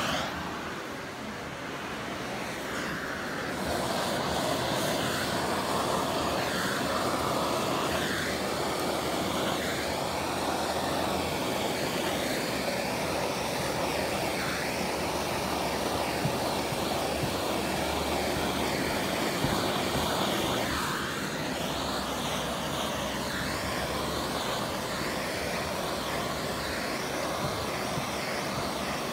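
Handheld gas torch flame burning steadily, played over car window tint film to heat-shrink it to the glass. A gloved hand rubs the film along with it. The sound is a little quieter for the first few seconds.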